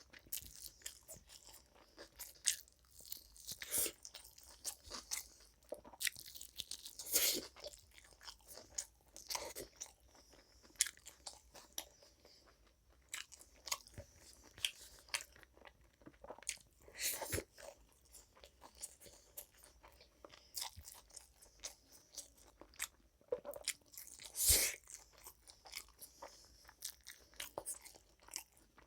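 A person eating close to the microphone: irregular crunching bites and chewing, with a few louder crunches scattered through.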